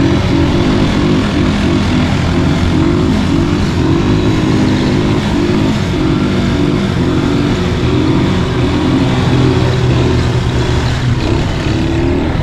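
Quad bike (ATV) engines running, their pitch stepping up and down as they are throttled.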